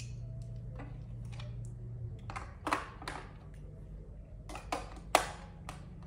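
Light, scattered clicks and taps, about eight of them, from batteries and the plastic parts of a battery-powered cat toy being handled, over a steady low hum.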